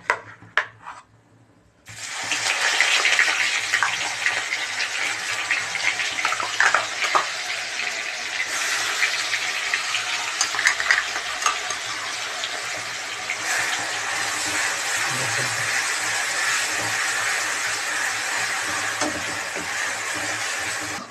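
Onion, ginger and garlic paste sizzling in hot oil in a kadai, the steady hiss starting suddenly about two seconds in and going on evenly, with a few scrapes of a metal ladle stirring it.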